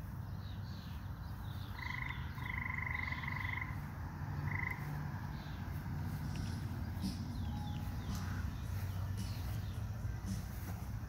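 A frog trilling in short bursts, the longest about two seconds in and a brief one near the middle, over scattered small bird chirps and a steady low rumble.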